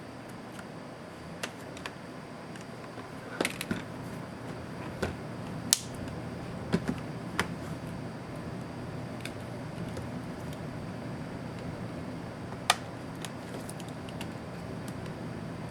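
Scattered sharp clicks and taps of small tools and plastic laptop parts being handled during disassembly, irregular, with a few louder snaps, over a steady low hum.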